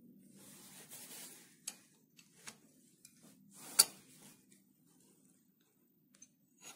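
Steel hand tools clinking and scraping against a metal lathe chuck as it is locked against turning, with one sharp metallic click about four seconds in, the loudest sound. A faint steady low hum sits underneath.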